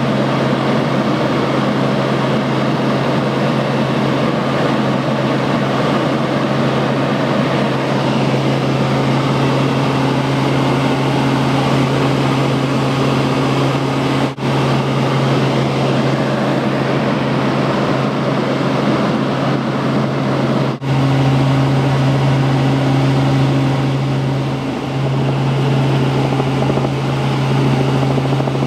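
Helicopter in flight heard from inside the cabin: a steady drone of rotor and engine with a constant low hum under it, dropping out for an instant twice.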